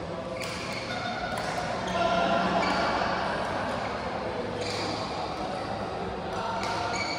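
Badminton doubles play in a hall: sharp racket hits on the shuttlecock scattered through, and shoes squeaking on the court floor, over a faint murmur of voices.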